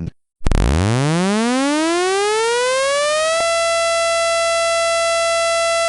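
Tornado siren winding up: a pitched wail rising smoothly from a low growl for about three seconds, then holding one steady high tone.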